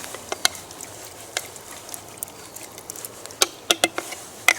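Scattered sharp clicks and taps from cooking at a campfire, about six of them, loudest near the end, over a low steady hiss.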